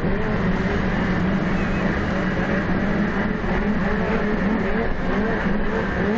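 Several racing snowmobile engines running on a snowmobile-cross track, a steady drone with engine pitch rising and falling as the sleds speed up and slow down.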